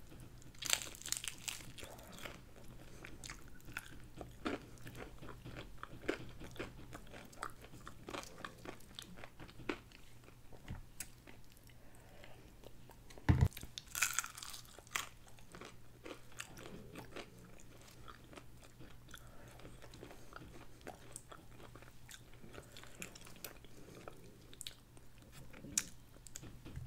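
Biting into and chewing KFC fried chicken: crackly crunches of the breading with chewing between them, the loudest crunch about halfway through.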